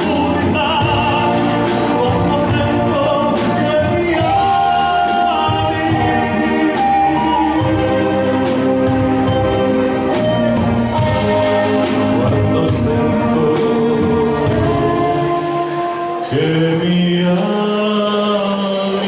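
A man sings an Italian-language pop-lyric ballad into a handheld microphone over instrumental accompaniment. The music dips briefly near the end, then comes back in with low held notes.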